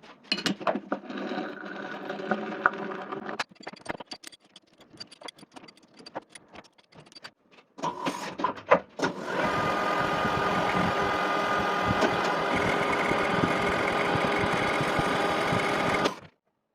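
Lathe running, with steady tones. It gives way to scattered light clicks and taps, then runs again loudly and steadily from about halfway through and cuts off abruptly near the end.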